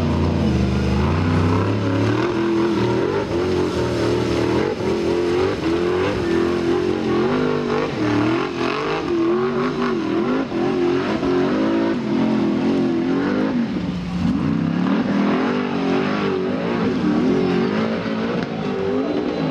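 Formula Offroad buggy engine revving hard, its pitch rising and falling again and again as the throttle is worked, with a brief dip about three-quarters of the way through.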